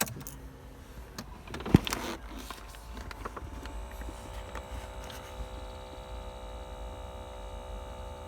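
A few clicks and a sharp knock, then the small fan motor of a Ford Focus 2 cabin air temperature sensor, fitted in the dashboard, starts about two and a half seconds in and keeps up a steady whining hum. The owner puts the hum down to the motor resonating in the dashboard.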